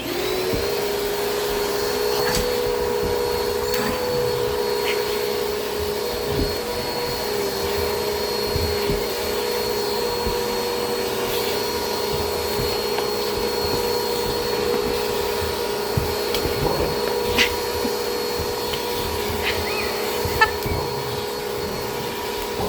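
Vacuum cleaner motor starting up right at the beginning and then running steadily with a constant whine, with a few short knocks and clicks over it.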